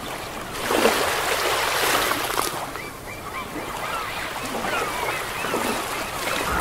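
Sea waves washing, louder in the first two and a half seconds, with many short bird calls over the wash from then on.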